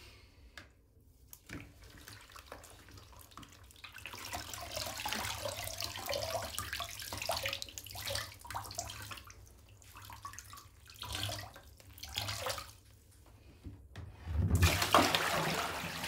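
Water streaming and splashing back into a plastic bucket as soaked wool mittens are lifted out and squeezed, in uneven waves of splashing. Near the end a louder, heavier rush of water starts.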